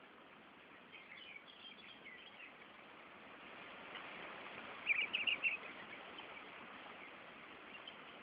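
Small birds chirping: a few scattered chirps, then a quick loud burst of chirps about five seconds in, over a steady hiss.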